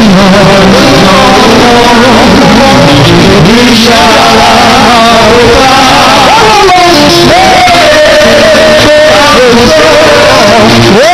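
Loud live church music: a band playing with a voice singing over it, notes bending and held.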